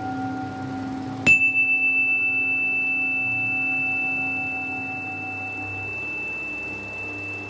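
A small Tibetan singing bowl held on the palm is struck once, about a second in, and rings on in a high, pure, sustained tone that pulses at first. Under it the lower hum of a bowl struck earlier, with a slow wavering beat, fades away.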